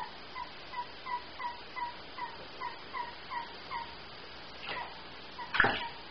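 A run of short squeaky owl calls, about three a second, that stops about four seconds in. Near the end comes a loud burst of wing-flapping and splashing from a long-eared owl bathing in a shallow plastic tub of water.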